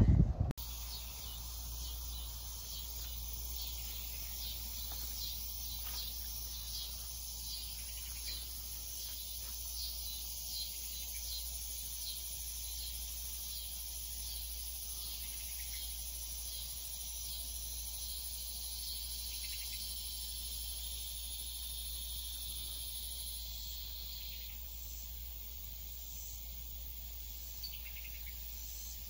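Evening chorus of crickets and other insects: steady high-pitched chirring with regular chirps a little more than once a second. The highest trill stops abruptly about two-thirds of the way through.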